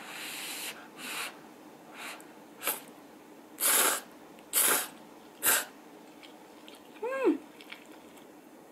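Blowing on hot rappokki to cool it, then three loud slurps of noodles from a small glass bowl, about a second apart. A short squeak near the end.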